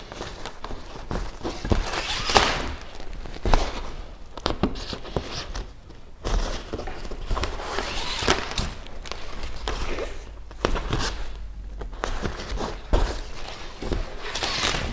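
Hand-stitching a kayak's fabric skin: thread drawn through the fabric and the skin rustling under the hands in swishes every few seconds, with scattered light knocks and thunks of hands on the hull.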